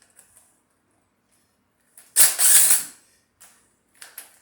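A power tool run in one short burst of about a second, about two seconds in, backing a bolt stud out of a Chevy 307 small-block engine. A few light metallic clicks come before it.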